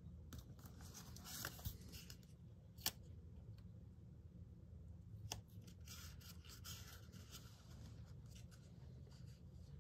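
Faint rustling and crinkling of masking tape and paper being handled and pressed down with the fingers, with two sharp ticks about three and five seconds in.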